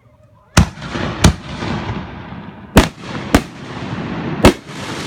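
Fireworks shells bursting overhead: five sharp bangs, roughly in pairs, each trailed by a lingering noisy rush.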